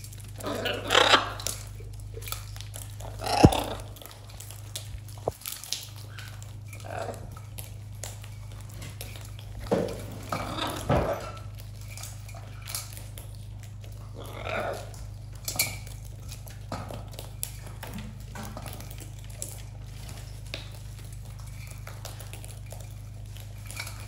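Macaws' beaks and claws clinking and scraping on a metal feeding tray, with scattered knocks and rattles of seed and a sharp knock about three seconds in, over a steady low hum.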